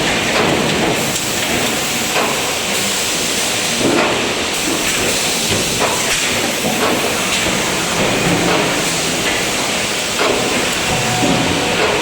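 Fully automatic multihead spot welding machine running: a steady, loud hiss-like machine noise with faint, irregular knocks every second or few.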